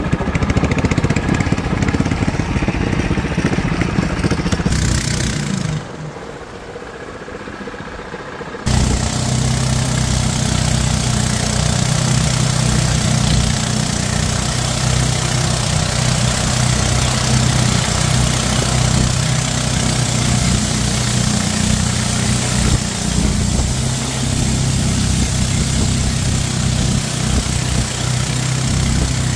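Engine of a wooden long-tail river boat running steadily under way, with water rushing and spraying along the hull. About six seconds in it drops quieter for a few seconds, then comes back abruptly at full level.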